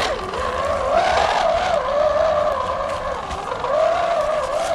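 Electric motor and gear whine of an RC scale crawler driving through mud, the pitch rising and falling as the throttle changes.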